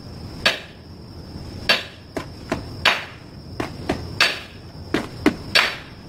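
A metal tool strikes a stuck wheel lug nut in a stomp-stomp-clap rhythm: two ringing metallic knocks, then a sharper clap, repeated about every 1.3 seconds. The blows are percussive shock meant to break the seized nut loose.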